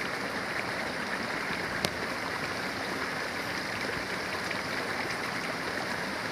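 Small shallow stream running steadily over a low step in its bed, an even rushing of water. One sharp click sounds about two seconds in.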